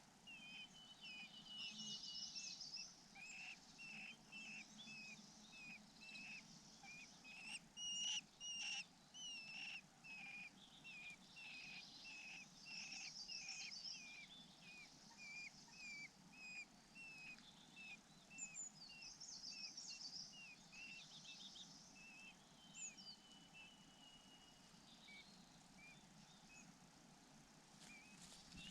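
Faint bird calls: a run of short chirps, about two a second, through the first two-thirds, with bursts of higher twittering and two longer whistled notes. Quieter near the end.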